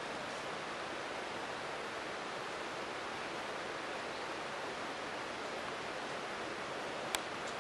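A steady, even hiss with one sharp click near the end.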